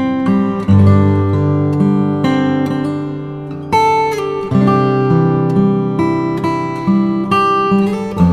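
Background music: strummed and plucked acoustic guitar playing a steady chord pattern.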